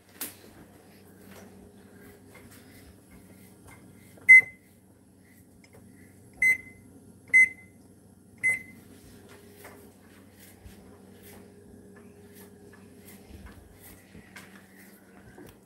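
Four short electronic beeps from a Samsung range's touch control panel, one for each key press, spaced about a second apart, as the oven timer is being set for 20 minutes.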